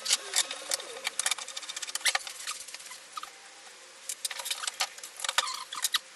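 Irregular light clicks and taps of small hard objects being handled on a workbench, in two clusters, stopping just before the end.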